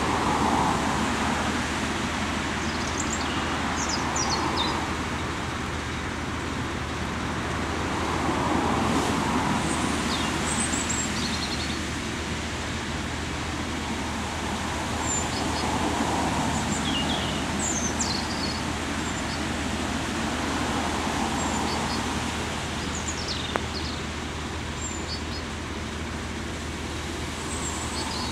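Class 09 diesel shunter's six-cylinder English Electric engine running at a distance: a steady low drone under a hiss that swells and fades every few seconds, with scattered bird chirps.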